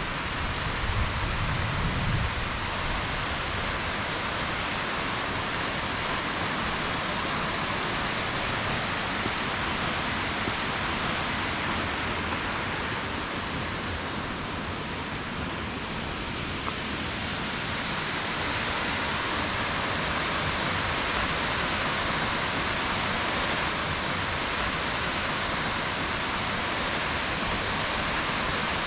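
Porcupine Falls pouring: a steady, even rush of falling water, its hiss dulling for a few seconds about halfway through.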